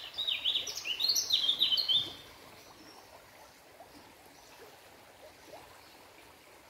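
A bird singing a quick run of short, high chirps, each falling in pitch, that stops about two seconds in; after that only a faint, even background hiss remains.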